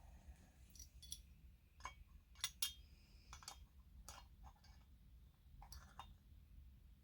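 Faint, scattered clicks and light metallic taps from small parts and tools being handled during hand work on a chainsaw cylinder's spark plug thread. The loudest pair of clicks comes about two and a half seconds in.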